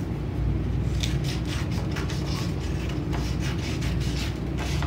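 Scissors snipping through folded paper along a crease, a quick run of short snips starting about a second in. A steady low hum sits underneath.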